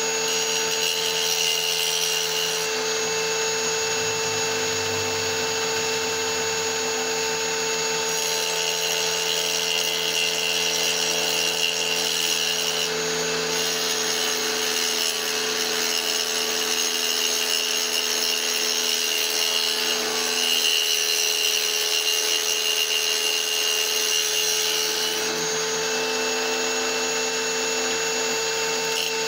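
Small power tool's motor running at a steady whine while it grinds a small piece of petrified wood held against it by hand; the grinding hiss strengthens and eases a few times as the stone is pressed on and eased off.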